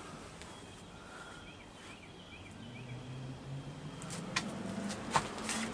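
Quiet outdoor background with a few faint short chirps, like a small bird, about two seconds in; a low steady hum comes in about halfway, and several sharp knocks or clicks follow near the end.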